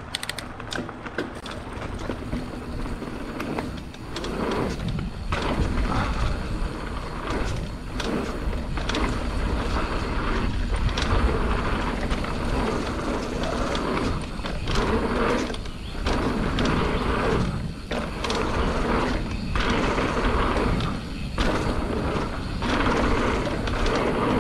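Mountain bike riding down a dirt jump trail: knobby tyres rolling over packed dirt and gravel and the bike rattling over the bumps, with wind rushing over the microphone. The rolling noise drops away briefly several times along the way.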